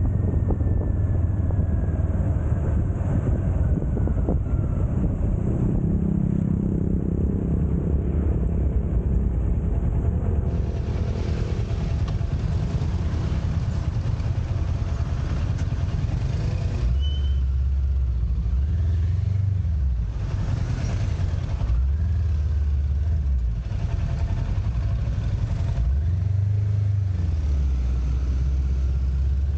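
Motorcycle engine running on the move in town traffic, with wind noise on the microphone in the first half. From a little past the middle, the engine note rises and falls several times as the bike eases off and pulls away again.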